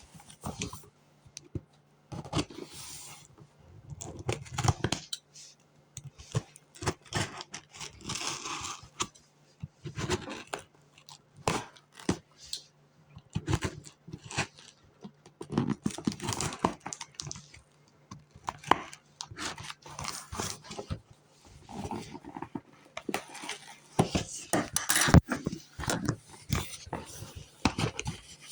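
Packing tape being scratched at, cut and torn off a cardboard box: irregular scraping, rustling and tearing with many short sharp clicks, one especially loud near the end, over a faint steady low hum.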